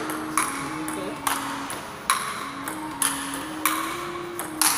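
Table tennis rally played with sandpaper paddles: six sharp clicks of the ball off paddle and table, a little under a second apart, each with a short echo. A simple stepping melody of background music plays faintly underneath.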